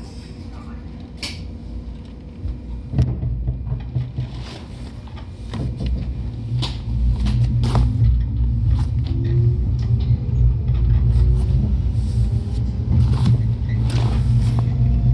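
A JR 103 series electric train pulling away, heard from on board. A clunk about three seconds in starts a low rumble that grows louder, and a traction-motor whine then climbs steadily in pitch as the train picks up speed, with scattered clicks and knocks from the running gear.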